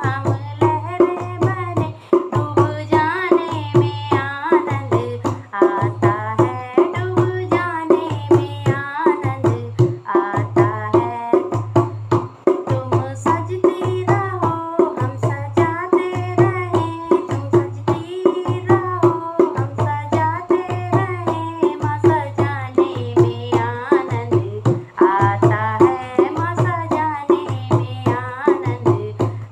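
A woman singing a Hindi devotional bhajan to the Mother Goddess over a steady hand-drum beat, with a held drone tone underneath.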